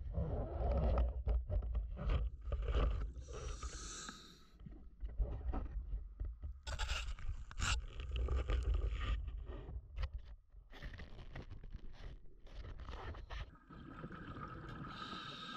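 Scuba diver breathing through a regulator underwater: hissing inhalations alternating with rumbling bursts of exhaled bubbles. Knocks and scrapes of the speargun being handled and reloaded sound near the start.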